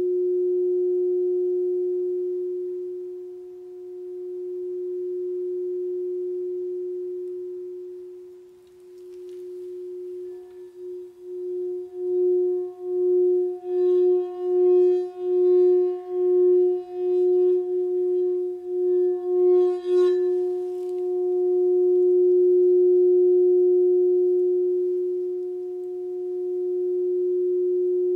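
Lavender Aura Gold crystal alchemy singing bowl tuned to F# in the fourth octave, ringing with one steady pure tone that slowly swells and fades. About ten seconds in a wand is worked around its rim, making the tone pulse a little over once a second with a faint shimmer of higher overtones; near twenty seconds the wand knocks the rim lightly and lifts off, and the bowl rings on.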